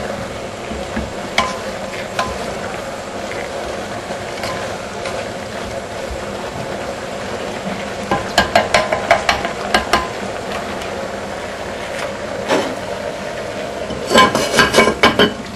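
A wooden stick stirring boiling herbs in a ceramic decoction pot over a gas flame, over a steady hiss. About eight seconds in comes a burst of rapid wooden clacks against the clay pot, and near the end a quick run of clinks as the ceramic lid is set back on the pot.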